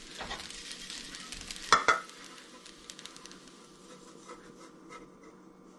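Fried rice sizzling faintly and being stirred and scraped with a spatula in a hot nonstick pan, with two sharp knocks just under two seconds in. Afterwards it goes quieter: soft scraping as the rice is pushed out of the tilted pan onto a plate.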